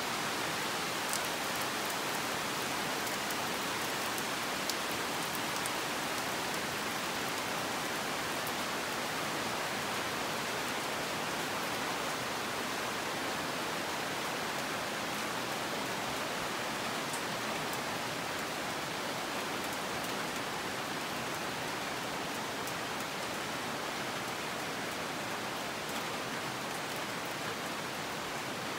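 Steady rain hissing on rainforest foliage, with a few faint scattered ticks of drops.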